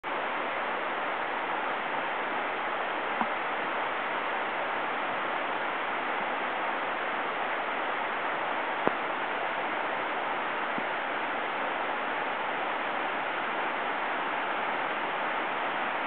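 Steady rushing of a waterfall, with two short clicks, one about three seconds in and one about nine seconds in.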